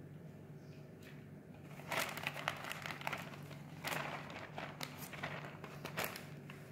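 A plastic zipper bag crinkling and rustling as it is squeezed and handled, in short bursts starting about two seconds in, again around four seconds and near six seconds.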